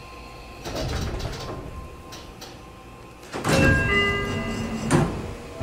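Sliding passenger doors of a Seibu 40000 series commuter train opening at a station stop: a loud rush of sound about three and a half seconds in, with several steady tones over it, then a thump near the end.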